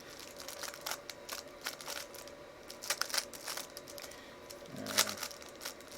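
A 3x3 Rubik's Cube being turned quickly by hand during a speed solve: an irregular run of plastic clicks and rattles as the layers are twisted.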